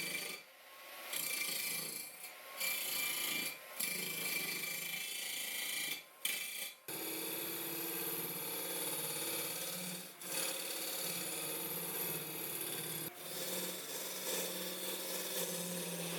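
Tool working wood, a steady rasping scrape over a low motor hum, broken by several brief gaps.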